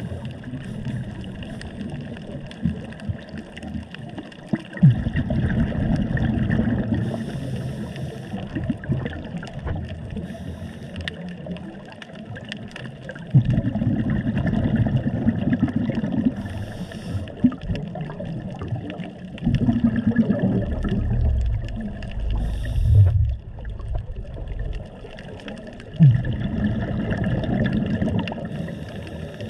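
Underwater scuba breathing: exhaled bubbles from a diver's regulator rumbling and gurgling in bursts of a few seconds, four times, with short hisses in between.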